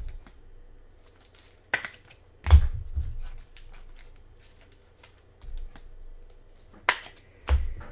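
Trading cards being handled and flipped through by hand, with soft clicks and rustles and a few sharper knocks on the table; the loudest is a dull thump about two and a half seconds in.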